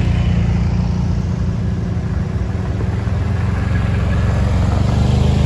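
ATV engines running steadily as the quads ride slowly past one after another.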